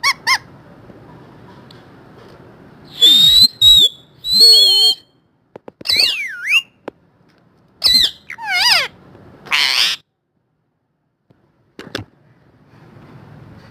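Parrot calling: two short calls at the start, then a run of loud squawks and whistled calls with swooping pitch between about three and ten seconds in, followed by a brief sharp sound near twelve seconds.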